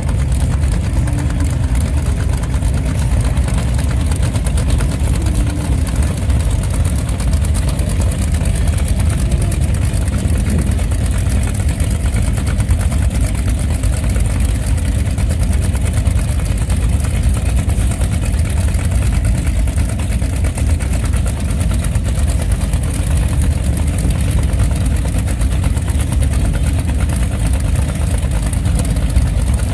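Several Boss Hoss V8 motorcycle engines idling together, a steady, deep rumble.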